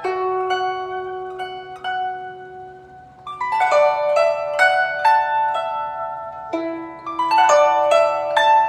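Background music played on a plucked string instrument: a few held notes at first, then quicker runs of plucked notes from about a third of the way in.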